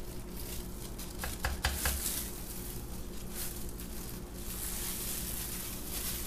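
Disposable plastic gloves rustling while a wooden skewer is drawn through thick soap batter in a loaf mold to swirl the top, with a quick cluster of four or five small clicks about a second and a half in. A faint steady hum runs underneath.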